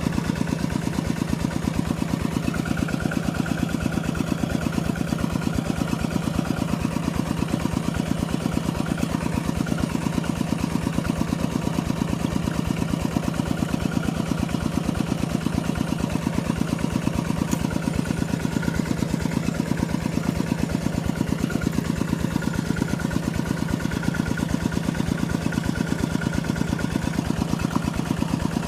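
A small engine running steadily at an even speed, its rapid firing pulses unchanging throughout.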